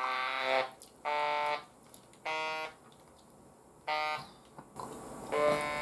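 Handheld electrolarynx pressed against the throat, giving a flat, unvarying buzz: an artificial voice for speaking after the larynx is removed. It sounds in four short bursts, then a longer one near the end.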